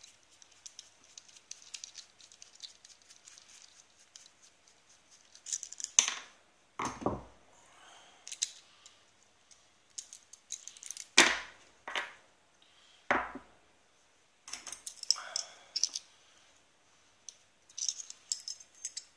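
An aluminium padlock being handled and worked on with a screwdriver: scattered light metallic clicks and scrapes, a few louder sharp knocks, and runs of rapid clicking in the second half.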